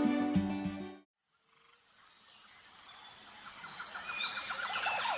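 Background music fades out within the first second, then forest ambience fades in: a steady high-pitched insect drone with short bird chirps and a quick pulsing trill.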